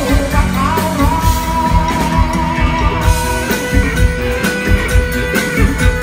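Live rock band playing an instrumental passage: electric guitar holding long sustained notes, the held note dropping lower about halfway through, over a steady drum beat.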